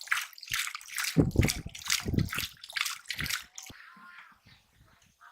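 Water splashing and sloshing in quick irregular strokes, with heavier, deeper sloshes about one to two and a half seconds in, as someone works through shallow water fishing by hand. The splashing stops about three and a half seconds in.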